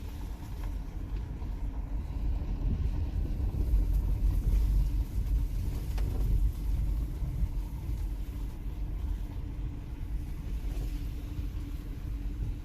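Subaru Forester driving on a rough dirt trail: a steady low rumble of its flat-four engine, tyres and suspension, a little louder around the middle.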